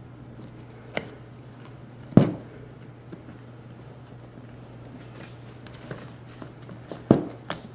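Scattered clicks and knocks from hands and pliers working on a car seat, the loudest about two seconds in, over a steady low hum.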